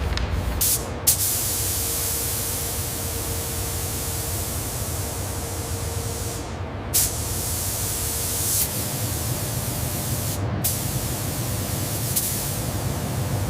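Steady hiss like a spray or air jet, cutting out briefly about a second in, near seven seconds and near ten and a half seconds, with a faint steady hum under it for the first part.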